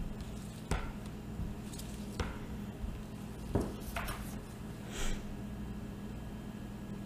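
Several light knocks and clicks as a plastic container of soap batter and a spatula are handled, over a steady low hum.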